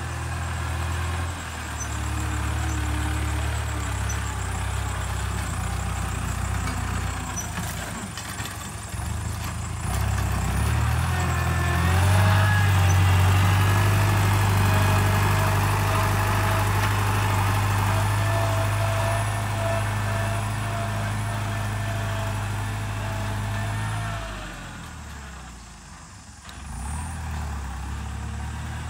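New Holland TS90 tractor's diesel engine running hard under load while the tractor pushes and rips stony ground, its sound growing stronger about twelve seconds in. Near the end the engine sound sinks and fades briefly, then picks up again.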